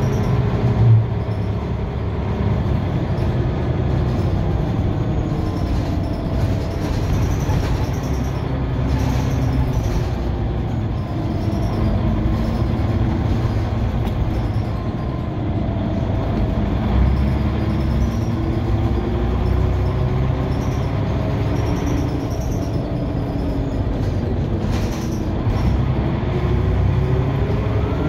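Scania OmniCity single-deck bus heard from inside the cabin while driving: a low engine rumble under whining tones from the driveline that glide up and down in pitch as it picks up speed and eases off, with a few short knocks and rattles.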